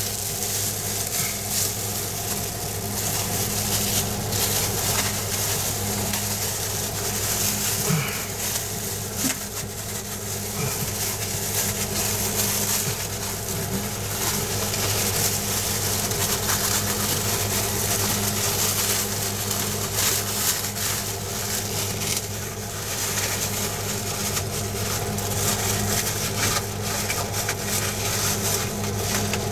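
Plastic-gloved hands pressing and smoothing resin-wet fiberglass cloth, an irregular crinkling and rustling, over a steady low hum.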